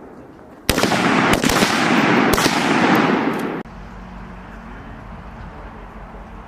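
Gunfire from M4 rifles on a range: several sharp shots overlapping with their echoes for about three seconds, then cutting off abruptly to a low steady rumble.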